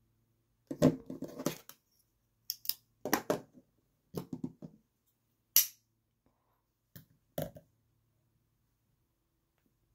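Folding knives being picked up, shifted and set down on a cutting mat: irregular clusters of light clicks and knocks of metal and handle scales against the mat and each other, with one sharper single click about five and a half seconds in.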